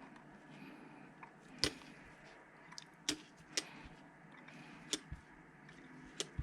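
A handful of sharp, irregular clicks and taps from small metal bicycle hub parts being handled and moved by hand while the freehub's spring and pawl are worked.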